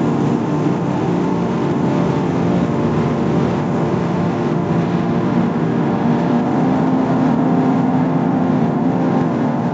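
Heavy vehicle engines running steadily.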